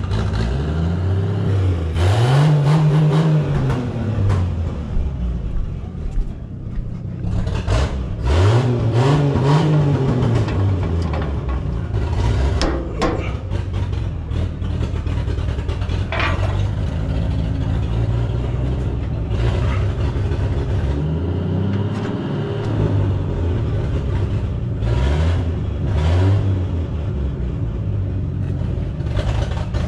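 Massey Ferguson 95X tractor's diesel engine running, revved up and back down four times, with metallic clanks between the revs.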